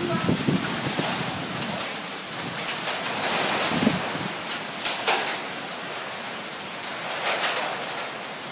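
Heavy thunderstorm rain pouring down onto pavement and lawn as a dense, steady hiss that swells louder in gusts several times.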